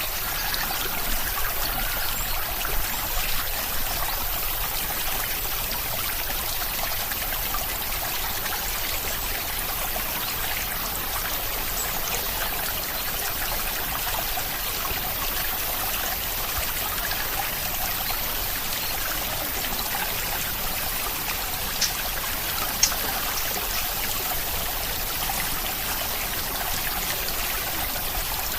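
Steady rain, an even hiss of falling and trickling water, with a couple of sharper drops near the end.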